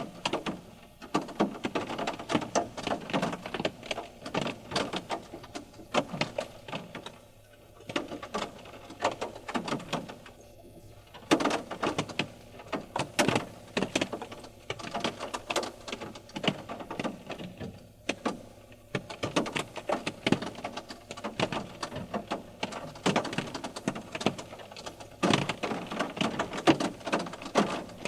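Water drops falling from trees after rain, tapping irregularly on a car, some single sharp hits and some in quick clusters, with a few brief lulls.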